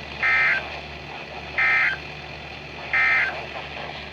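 NOAA Weather Radio EAS end-of-message signal: three short, buzzy SAME data bursts about 1.4 s apart over steady radio hiss, marking the end of the special marine warning.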